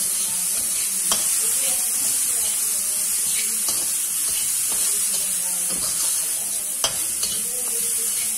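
Chopped vegetables sizzling as they are stir-fried in a wok, a steady frying hiss under the scrape of a spatula. The spatula knocks sharply against the pan a few times, loudest about seven seconds in.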